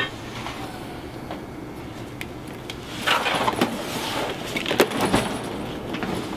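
A bag and gear being handled at an open car hatch: rustling and several sharp clicks from about three seconds in, over a steady low hum.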